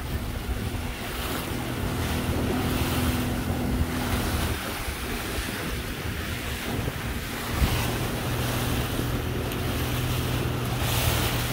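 Fishing boat's motor running steadily at trolling speed, with wind buffeting the microphone and water rushing along the hull. A single knock comes about two-thirds of the way through.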